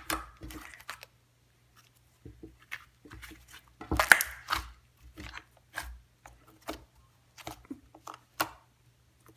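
Slime being kneaded and squished by hand, giving irregular wet clicks and crackling pops, thickest about four seconds in.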